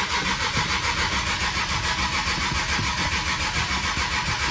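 Infiniti G37's VQ37VHR 3.7-litre V6 being cranked by the starter without catching, a steady fast pulsing that cuts off suddenly. It is a no-start just after GTR fuel injectors were fitted.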